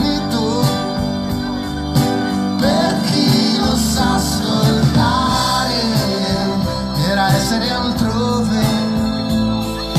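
Live pop band playing a song on stage, with keyboards and a man's voice singing the melody, as heard from the audience.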